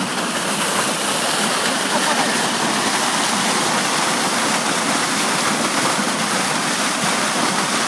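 Water gushing in a steady, heavy rush from the discharge outlet of a fish-transport tank into a lake, churning the surface into foam as a load of live stocking fish is emptied out.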